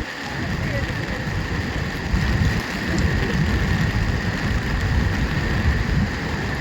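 Rumbling roar of the Duduma waterfall's falling water, steady and a little louder from about two seconds in, with a thin steady high whine over it.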